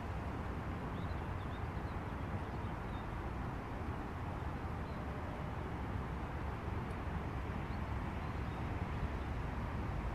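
Steady low outdoor rumble with no clear events, with a few faint bird chirps in the first few seconds.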